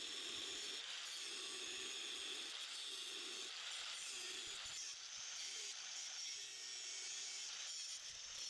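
Angle grinder with a cut-off disc running steadily while cutting through steel.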